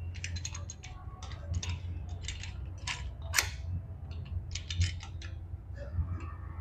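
Light metal clicks and clinks of motorcycle clutch plates being fitted onto the clutch hub of a Hero Splendor engine, coming in uneven runs, over a steady low hum.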